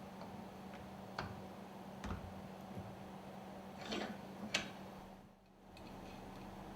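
A few light clicks and knocks of small metal lubricator parts being handled during reassembly, four in all with the last two close together, over a steady low hum.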